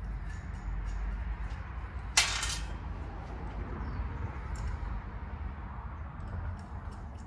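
Small metal ticks of bolts and hardware being fitted by hand to an AC condenser fan motor on its wire fan guard, with one sharp metal clank about two seconds in, over a steady low rumble.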